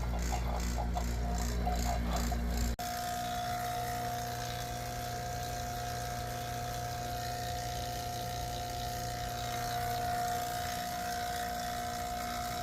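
A machine running steadily, a mechanical hum with a clear steady tone; about three seconds in it switches abruptly from a rattling, deeper hum to a smoother, higher-toned one.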